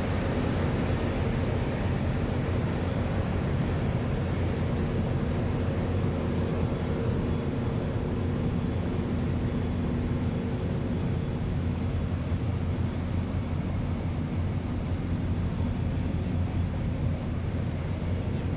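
Jet fighter's engine running steadily: a deep, even noise with faint steady hum tones, neither rising nor falling.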